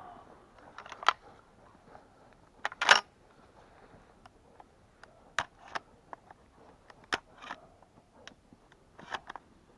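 Irregular sharp clicks and knocks, about a dozen, the loudest cluster about three seconds in: handling noise as the gun carrying the camera is moved.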